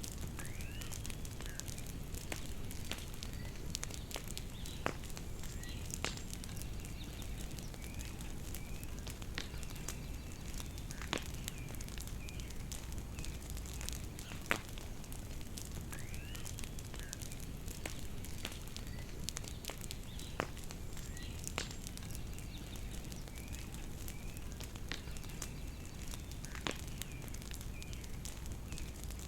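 Bonfire crackling steadily with sharp pops every few seconds, and birds chirping faintly.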